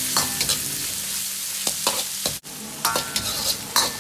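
King oyster mushroom and pork belly strips sizzling in oil in a wok, tossed quickly with a steel wok ladle that scrapes and knocks against the pan several times. The sizzle drops out for an instant about halfway through.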